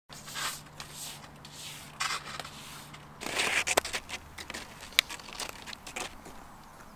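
Fischer cross-country skis and boot bindings shuffling on snow: a run of scraping, crunching strokes with a few sharp clicks, the loudest click about five seconds in.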